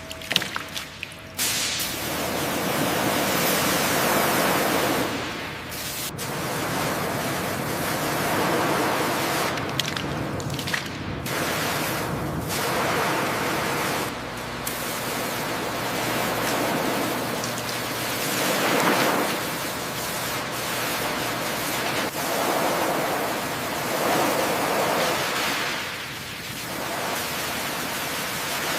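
Sea surf: a rushing wash of waves that swells and eases every few seconds, starting about a second and a half in.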